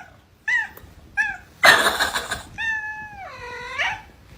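A cat meowing: two short meows, then a brief loud noise, then one long drawn-out meow that dips in pitch and rises again at its end.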